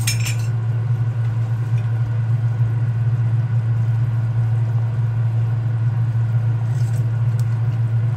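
A steady low hum over the bubbling of a pot of soup at the boil, with a few light clinks of a wooden spoon stirring against the pot at the start and about seven seconds in.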